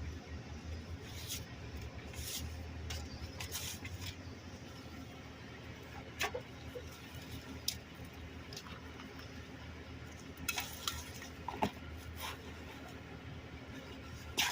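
Discarded items being rummaged through and handled in a dumpster: scattered light clinks, knocks and rustles, a cluster of them after about ten seconds, over a steady low rumble.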